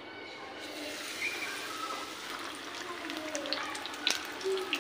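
Oil sizzling in an iron karai as batter-coated potato chops are deep-fried. The sizzle starts about half a second in and builds, with sharp crackles from about three seconds in as another battered chop goes into the oil.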